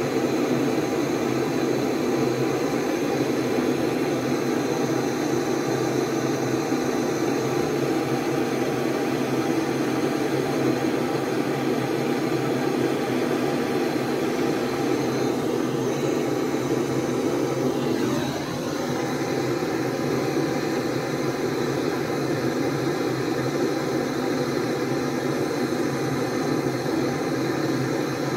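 Gas torch burning steadily, its flame playing on a metal housing to heat it before a part is pressed in. About two-thirds of the way through the sound briefly dips and changes tone, then carries on.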